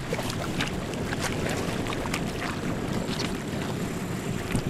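Wind buffeting the microphone over choppy water around a small drifting fishing boat, a steady rumble with scattered light splashes and knocks.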